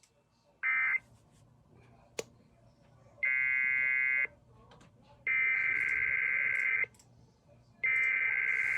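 Emergency Alert System digital header tones (SAME data bursts): a short buzzy burst about a second in, then three longer bursts of one to one and a half seconds each, about a second apart, each starting and stopping abruptly.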